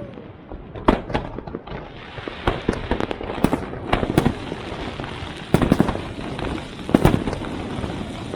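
Fireworks going off: a steady crackle of bursting shells broken by sharp bangs, the loudest about a second in, around five and a half seconds and about seven seconds in.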